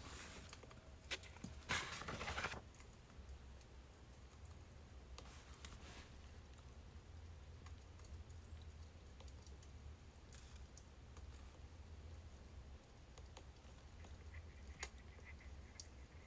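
Faint crackling of burning birch logs, with scattered sharp pops and a denser rustling burst about two seconds in, over a steady low hum.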